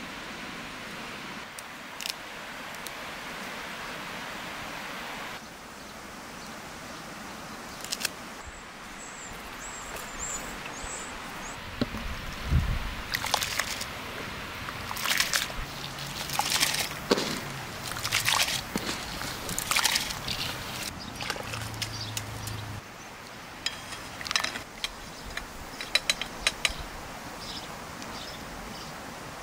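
Rice tipped from a bowl into a cast-iron kazan of boiling water, splashing and sloshing in a run of loud, irregular bursts, then stirred, with light clicks of the utensil against the pot near the end. Before that, a steady outdoor hiss with a few faint high chirps.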